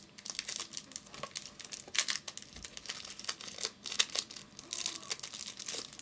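Foil trading-card pack wrapper being torn open and crinkled by hand, a dense crackling rustle that stops at the end.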